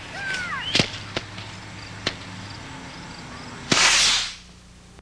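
Fireworks going off: three sharp cracks in the first two seconds, then one much louder blast near the end that dies away over about half a second.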